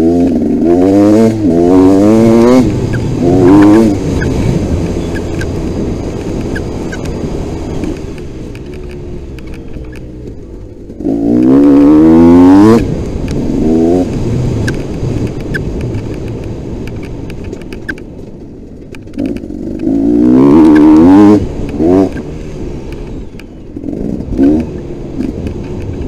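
Dirt bike engine under hard acceleration, climbing in pitch in quick rising sweeps as it revs up through the gears. The loudest bursts come at the start, about halfway through and about three quarters through, with the engine easing to a lower, quieter run between them.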